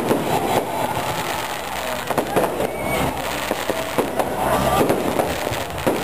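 Aerial fireworks bursting overhead: a rapid, overlapping run of bangs and crackling.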